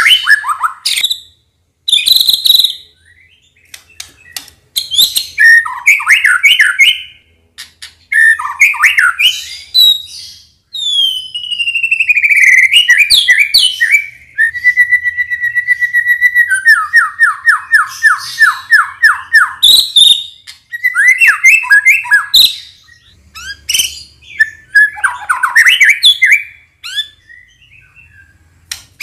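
White-rumped shama (murai batu) singing: a string of loud whistled phrases with short pauses between them. Halfway through come a long falling whistle, a held note and a quick run of about ten repeated notes.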